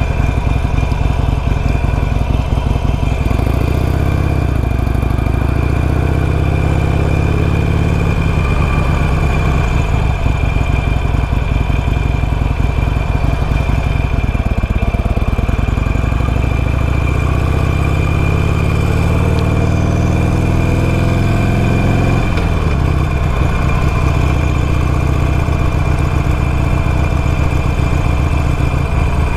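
2021 Harley-Davidson Sportster Iron 883's air-cooled V-twin engine running under way at low speed, its pitch rising and falling with the throttle. A long steady climb in engine speed cuts off with a sudden drop about two-thirds of the way through.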